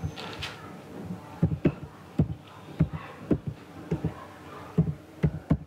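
Computer keyboard being typed on, a run of short knocks at an uneven pace of roughly two a second.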